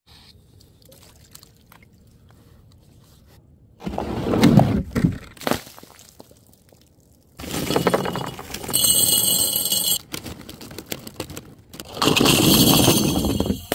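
Glass being smashed in three separate bursts of shattering and crunching, about four seconds in, about seven and a half seconds in, and near the end. The later two carry bright, high ringing of breaking glass and scattering shards.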